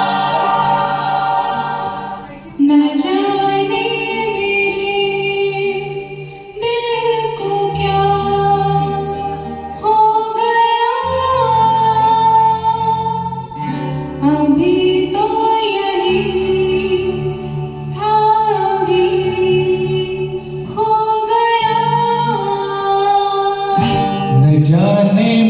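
Music: a song intro, a held, gliding lead melody line in phrases of a few seconds over a backing track with plucked strings and a bass line.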